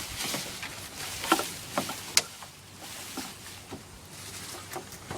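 Scattered knocks and clatter over rustling, as objects are handled and moved, with two sharper knocks about a second and two seconds in.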